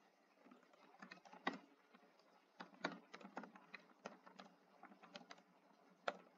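Faint typing: an uneven run of keystroke clicks as a short line of text is typed, with the sharpest clicks about a second and a half in and near the end.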